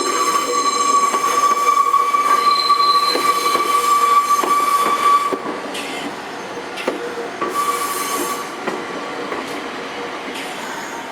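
Nankai train's wheels squealing steadily as it runs over the station crossover, with scattered clicks of the wheels over rail joints and points. The squeal cuts off about five seconds in and comes back briefly near eight seconds.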